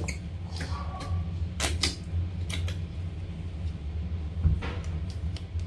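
Handling noises as slime and putty containers are moved about: a handful of short clicks and knocks, scattered unevenly, over a steady low hum.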